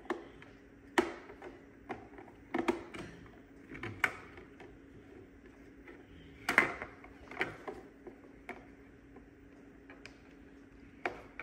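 Irregular clicks and knocks of a Eufy 11s robot vacuum's plastic casing being handled and flipped while its front bumper is fitted back on, over a faint steady hum.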